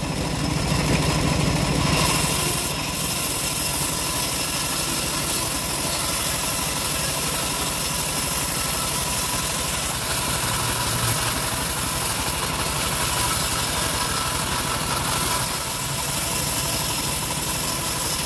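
Engine-driven homemade bandsaw mill running steadily while its band blade saws through timber, a continuous machine drone with no letup.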